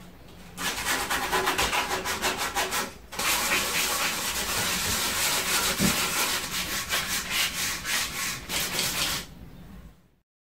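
Sandpaper on a hand sanding block rubbing over a wooden board in rapid back-and-forth strokes. Two bouts of sanding, with a brief pause about three seconds in, stopping about nine seconds in.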